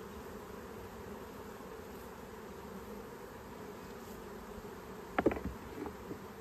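Honeybees buzzing steadily around an open hive. About five seconds in, two sharp knocks of wood on wood from the hive's wooden frame and box being handled, followed by a few lighter clicks.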